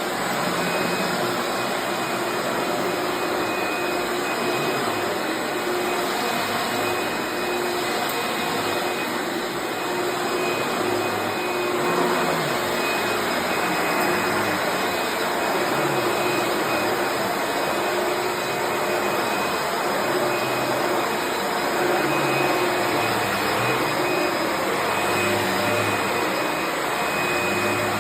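Eureka The Boss Plus Bravo 2 upright vacuum cleaner's 12-amp motor running steadily, a whine over the rush of air.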